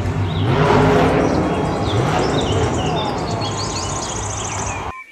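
Monster truck engine running loud and swelling about a second in as the truck drives, under arena crowd noise; the sound cuts off abruptly near the end.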